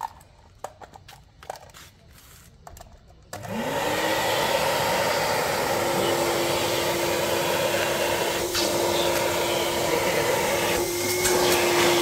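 Shakti Technology 35-litre wet-and-dry vacuum cleaner, with a 1600 W double-stage copper-wound motor, switched on about three seconds in: its whine rises quickly in pitch and settles into a steady full-power run. Before it starts there are a few light clicks of handling.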